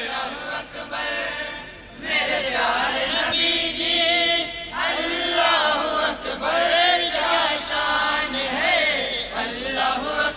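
Several men's voices chanting together in a devotional naat, their melodic lines overlapping; the sound dips briefly about two seconds in.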